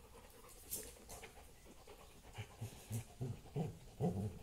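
A young yellow Labrador gives a quick run of short, low play growls, about four a second, starting about halfway through, while mouthing a plush tiger toy.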